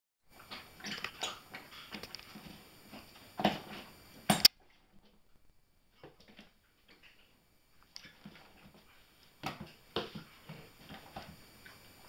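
Border collie puppy playing with a rubber chicken toy: small dog noises and scuffling, with two sharp knocks a little before halfway as the loudest sounds. It goes quieter for a few seconds, then the play noises start again.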